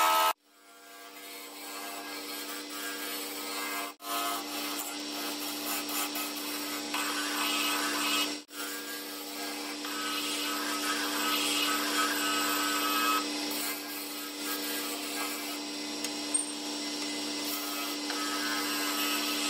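A General wood lathe running with a steady motor hum while a turning gouge cuts into a spinning mahogany blank, a rough scraping hiss of shavings over the hum. The sound breaks off briefly about four and eight seconds in.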